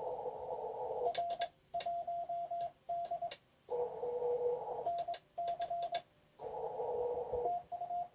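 Morse code (CW) on an ICOM IC-7200 ham transceiver: on-off beeps at two pitches, one of them coming with sharp clicks of a hand key, alternating with stretches of band hiss that cut in and out. The ICOM IC-7200 is an HF transceiver.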